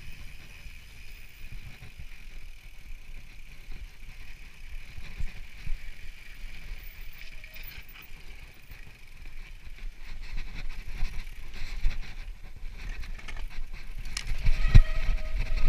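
Mountain bike rolling fast downhill over dirt and gravel: tyres crunching and rumbling, with a steady high whir underneath. After about ten seconds the track gets rougher and the bike rattles and knocks over bumps, with one hard knock near the end.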